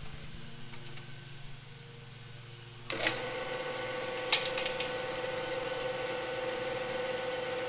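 Benchtop drill press switched on with a click about three seconds in, its motor then running with a steady hum. A second sharp click comes about a second later.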